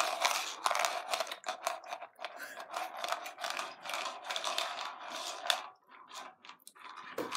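A hand rummaging among unwrapped chewy candies in a plastic bowl: a quick run of scraping and clicking that thins out about five seconds in.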